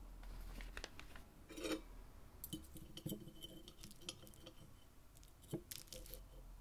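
Faint, scattered clinks and light knocks of small hard objects being handled, a few of them ringing briefly; the loudest come a little under two seconds in and again near the end.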